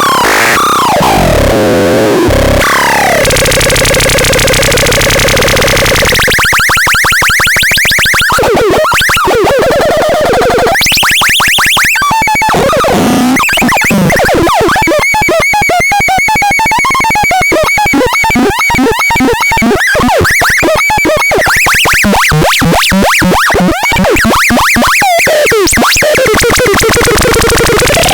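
Loud, harsh electronic noise from a synthesizer-like noise device. It shifts every few seconds between sweeping tones, steady buzzing chords and fast stuttering pulses.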